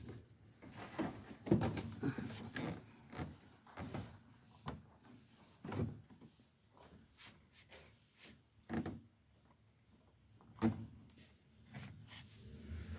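Irregular clunks and knocks of parts being handled during clutch master cylinder work: a string of short, separate knocks with quiet gaps between them, the loudest about a second and a half in.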